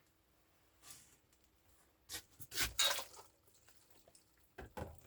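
Water splashing and dripping in a few short bursts as cooked pasta drains.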